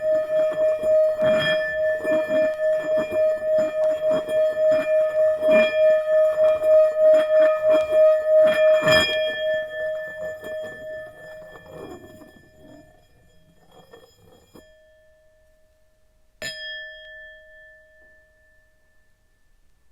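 Tibetan singing bowl ringing with one steady, wavering tone and its overtones, held strongly for about nine seconds and then fading away; a few seconds later it is struck once and rings out.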